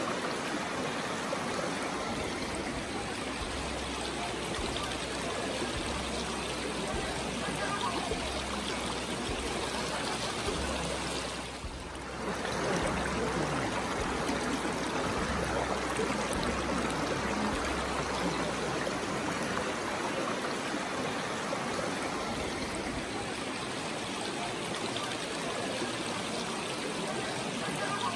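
Shallow mountain river rushing over a rocky streambed: a steady, dense noise of running water, with a brief dip in level about twelve seconds in.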